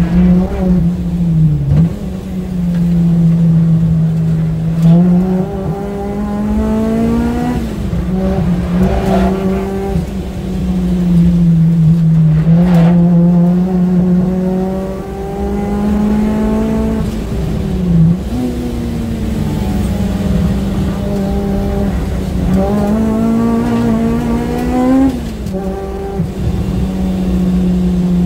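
Honda Civic Type R's engine heard from inside the cabin on track: revs climb through the gears and drop sharply at each upshift, three times, then ease and dip between the pulls. Steady road and tyre noise runs underneath, with a few short knocks.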